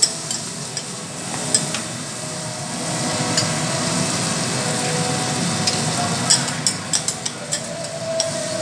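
Food sizzling on a teppanyaki griddle, with sharp clicks and taps of metal spatulas on the hot plate, several in quick succession near the end.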